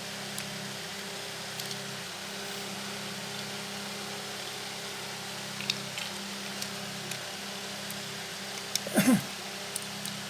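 Light clicks and taps of a plastic car phone charger's casing being handled and pried open, over a steady low hum. About nine seconds in, a louder brief sound falls in pitch.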